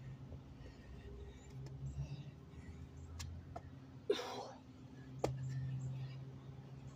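Feet and hands landing on concrete during a burpee. There is a sharp slap with a brief scuff about four seconds in, then another slap about a second later, over a faint low hum.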